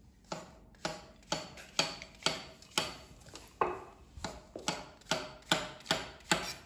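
Chef's knife slicing mushrooms on a wooden worktop, the blade knocking the wood in a steady rhythm of about two cuts a second.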